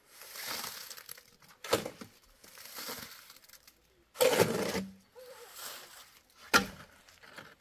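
Steel shovel scraping and turning wet cement mix in a metal wheelbarrow. Gritty scrapes come between sharp knocks of the blade against the tray, about two seconds in and again near the end, with a louder scoop and dump a little past halfway.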